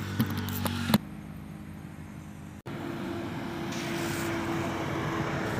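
A few sharp taps of live fish flapping against a metal basin. Then, outdoors, a steady engine-like drone with a hiss, and a brief swish as a cast net is thrown about four seconds in.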